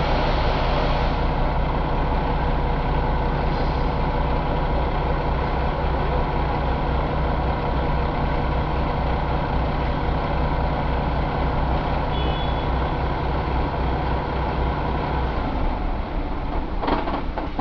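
2018 Paccar MX13 inline-six diesel engine running at a steady idle; its low steady note drops away near the end.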